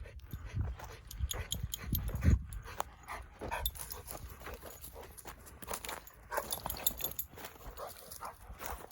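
Dogs moving about, with irregular scuffs, clicks and knocks; the loudest is a low thump a little over two seconds in.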